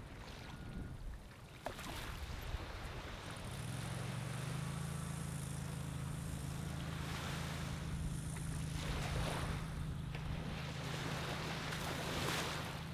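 A steady low engine hum that sets in about three and a half seconds in and keeps running, over ocean waves washing onto the beach sand in slow swells.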